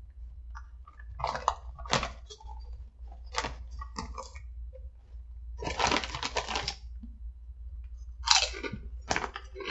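Kettle-cooked potato chips crunching as they are eaten, mixed with the foil chip bag crinkling as a hand reaches in. The noises come in short bursts about a second apart, with a longer crinkly stretch about six seconds in.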